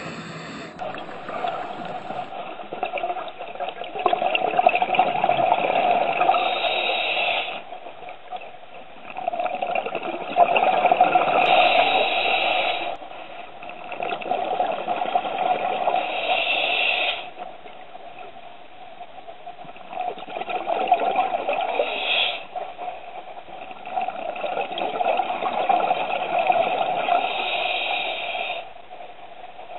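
Scuba diver breathing through a regulator underwater: five long bursts of bubbling and hiss, each a few seconds long, with quieter pauses between breaths.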